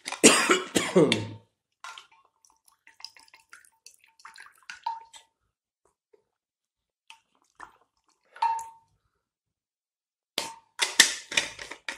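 A man drinking from a cup filled from a stainless-steel flask: scattered clicks and knocks from the flask and cap, small liquid sounds and swallows, then a cluster of sharper handling sounds near the end.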